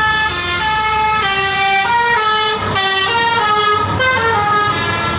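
Indonesian tour bus's 'telolet' basuri multi-tone air horn playing a tune: a quick run of held notes that step up and down in pitch, about two or three a second.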